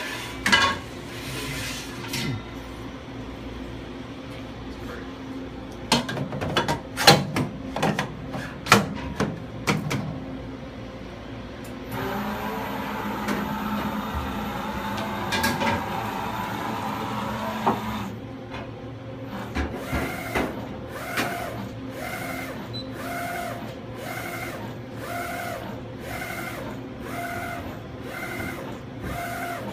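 Screen-imaging machinery running. There are knocks and clatter at first, then a steady machine hum with a thin high whine for about six seconds. After that comes a rhythmic whirring that pulses about one and a half times a second, typical of a print head carriage shuttling back and forth.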